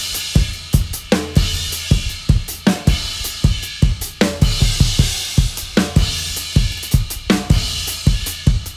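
Drum solo on an acoustic drum kit: fast strokes moving around the snare and toms under bass drum hits, with cymbals ringing over the top.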